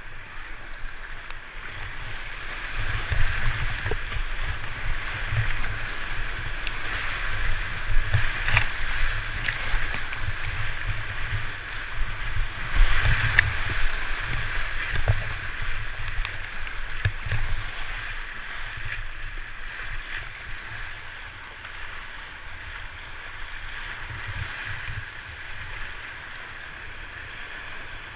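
Whitewater rushing and splashing around a kayak running a rapid, with low thuds of water against the boat. It is loudest in the middle, peaking as the boat punches through a breaking wave, then eases toward the end.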